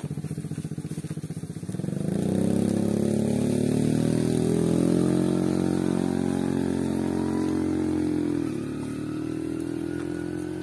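Motorcycle engine idling with a pulsing beat, then rising in pitch about two seconds in and running steadily at higher revs, before dropping back down about two seconds before the end.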